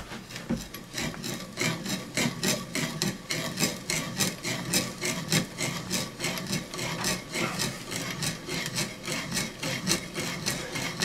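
Hand-forged spoon bit turned in a bit brace, boring into a wooden post: an even run of rasping, scraping cuts, several a second, as the bit shaves out wood. It is cutting smoothly, without tearing out.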